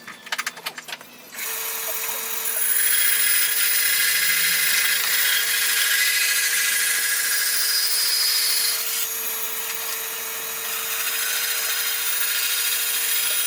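Electric power tool working wood: a few sharp clicks, then the tool starts about a second and a half in and runs steadily with a constant motor hum under a loud hiss, cutting off sharply at the end.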